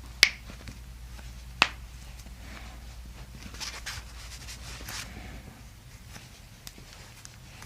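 Joints cracking during a chiropractic adjustment: two sharp pops about a second and a half apart. These are followed by soft rustling.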